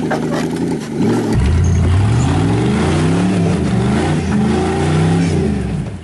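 Full-size Chevy pickup rock crawler's engine revving under load, its pitch rising and falling in repeated surges as the truck climbs a rock ledge with its wheels spinning on the rock.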